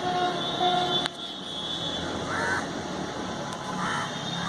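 The WCAM2P electric locomotive's horn gives two short toots in the first second over a low steady rumble. The horn cuts off suddenly, and a crow caws twice.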